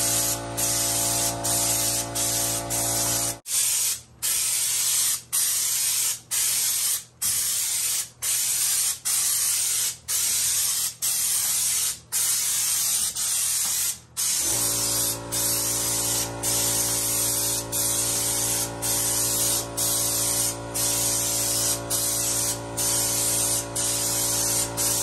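Air-driven schutz gun spraying Shake & Shoot bedliner coating: a loud hiss that breaks off briefly every half second to a second as the trigger is let go between short passes. Under it a steady machine hum stops about three seconds in and comes back about halfway through.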